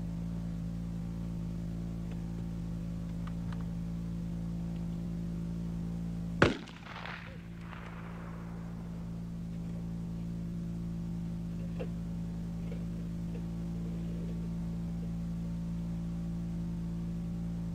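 A single rifle shot about six seconds in, sharp and loud, with a short echoing tail, over a steady low hum. A couple of faint clicks follow later.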